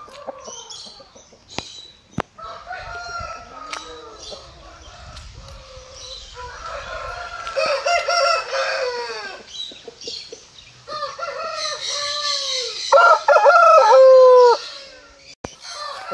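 Aseel roosters crowing, several drawn-out crows overlapping one another, with shorter calls in the first few seconds. The loudest, longest crow comes about three-quarters of the way through.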